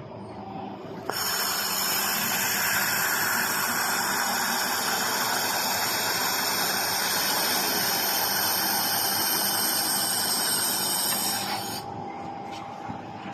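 A 4-in-1 handheld laser welding machine in operation, giving a steady, loud hiss with high whistling tones that starts abruptly about a second in and cuts off near the end.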